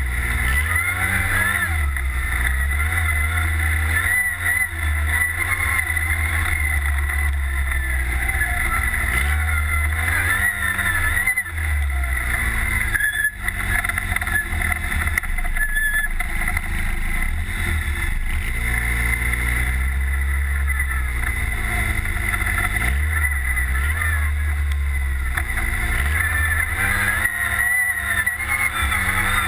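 Redline Revolt off-road buggy's engine running while being driven on a dirt trail. The pitch rises and falls again and again as the throttle is opened and eased, over a heavy low rumble.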